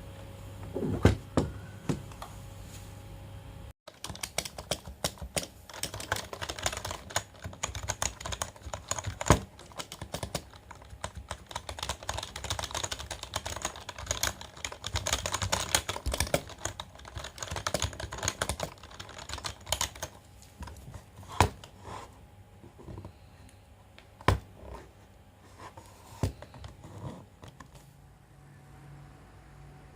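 Keys of a MageGee TS91 membrane gaming keyboard being typed on: a fast, dense run of clicks that thins out to scattered single key presses after about 20 s.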